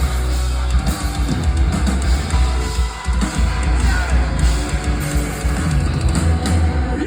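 Live heavy rock band playing loud distorted electric guitars, bass and drums, heard through a phone or camera microphone in a concert hall; the music stops abruptly at the end.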